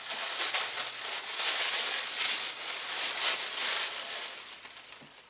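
Paper or plastic wrapping crinkling and rustling in the hands as a gift is unwrapped, in uneven surges that die away near the end.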